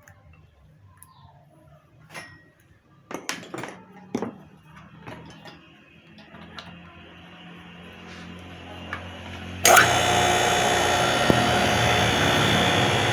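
Electric motor of a centrifugal water pump running on a test cable, a steady low hum with its shaft spinning. About two-thirds of the way in, a loud, harsh rasp starts suddenly and holds steady as the spinning shaft is cleaned against something abrasive.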